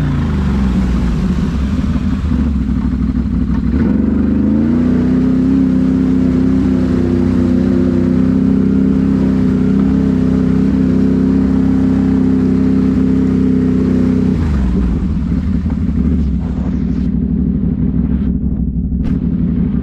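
Can-Am Renegade XMR 1000R's V-twin engine running through an SLG Sniper slip-on exhaust while riding: the revs climb about four seconds in, hold steady at a higher pitch for about ten seconds, then drop back.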